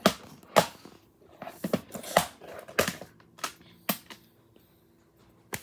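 Plastic DVD case being handled and opened: a series of sharp plastic clicks and snaps, the two loudest in the first second and another just before the end.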